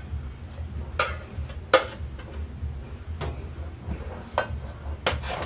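A metal utensil scraping and knocking against a metal baking tray as roasted vegetables are pushed off it, giving about five sharp clinks a second or so apart. A steady low hum runs underneath.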